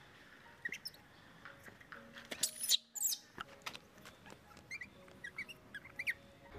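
Baby macaques giving short, high-pitched squeaks and chirps, some rising in pitch, scattered throughout, with the loudest squeals a little before halfway.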